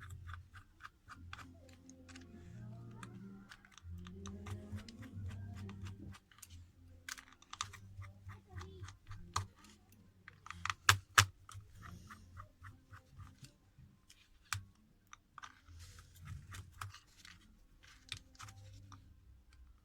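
Small tools clicking and tapping against a smartphone's plastic and metal internals during disassembly, in many irregular light clicks with a cluster of sharper, louder clicks about eleven seconds in.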